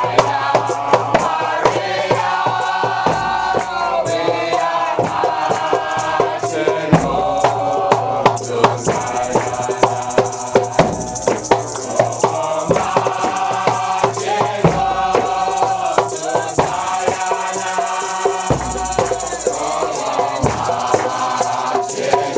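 A congregation singing a chant together, over hand percussion that keeps a steady beat.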